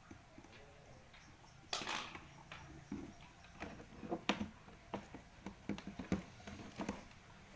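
Irregular light knocks and clicks of objects being handled and worked, with a short scraping rustle about two seconds in.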